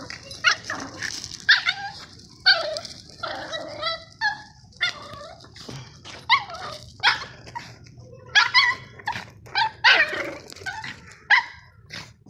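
Chihuahua giving a rapid string of short yips and barks while playing with a basketball.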